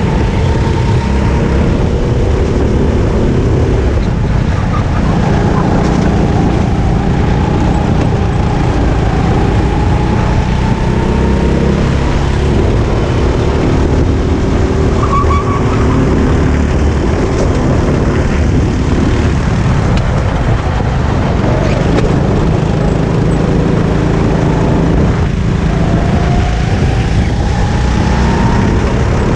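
Onboard sound of a Sodi RT8 rental kart's four-stroke engine at racing speed, its pitch climbing as it accelerates out of corners and dropping back as it lifts off, over a steady rumble of tyres and road.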